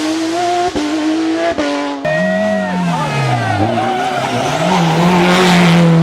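Rally car engine at full throttle, its pitch climbing in steps as it changes up about three times, then falling as it comes off the throttle before holding steady high revs. Tyre noise rises near the end.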